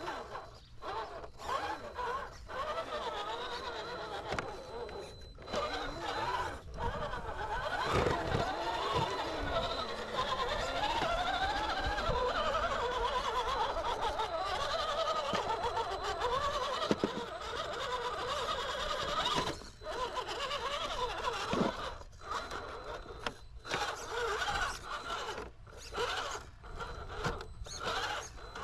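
Electric motor and gear drivetrain of an RC rock crawler whining as it climbs over rocks, its pitch rising and falling with the throttle. From about two-thirds of the way in it comes in short bursts with pauses between.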